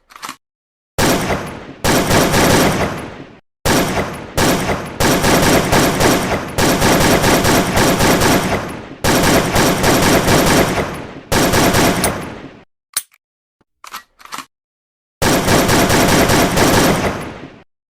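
Bursts of automatic gunfire: several long strings of rapid shots with brief breaks between them, a few single shots about two-thirds of the way through, then one more long burst near the end.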